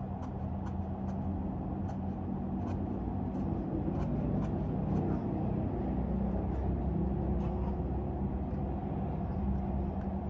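High-heeled shoes clicking on a hard floor in sharp, irregular steps, over a steady low hum.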